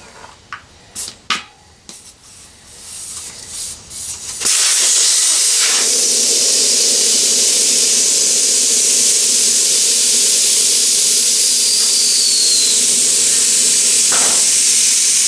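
Air rushing out of a motorcycle tyre through the open valve stem with its valve core removed, deflating it: a loud, steady hiss that starts suddenly about four and a half seconds in, after a few light clicks.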